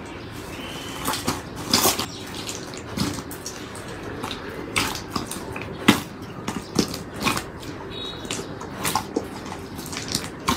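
Hands squishing and stretching a large mass of wet slime in a glass bowl: irregular wet pops, crackles and squelches as trapped air bursts from the slime.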